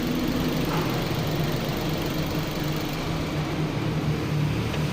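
Nissan Almera's engine idling steadily.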